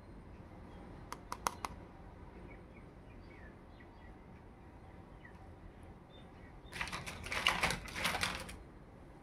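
Small plastic toy dressing table being handled: a few light clicks about a second in, then a louder run of plastic clattering for about two seconds near the end as it is set down on the mat.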